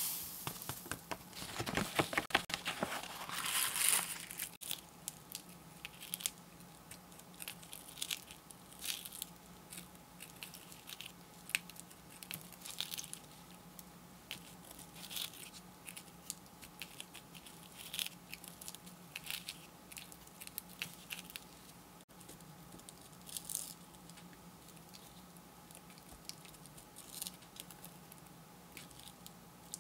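Loose coloured sand being shaken off a sand-art card, with the card rustling, for the first few seconds. Then scattered quiet scratches and small crackles as a plastic stylus picks at the sticky sheet.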